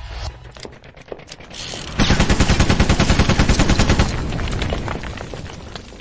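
Logo-intro sound effect: a rising swell, then a rapid machine-gun-style burst of about ten shots a second lasting about two seconds, dying away into a fading rumble.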